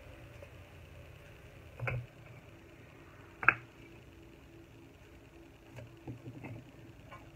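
Fired clay bricks knocking together as they are handled and stacked by hand: two sharp clinks about a second and a half apart, the second louder, then a few lighter knocks near the end.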